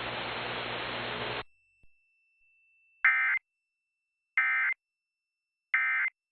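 Emergency Alert System SAME end-of-message data bursts: three identical short buzzy bursts of data tones, about 1.35 seconds apart, marking the end of the alert. They follow a steady hiss of broadcast static that cuts off about a second and a half in.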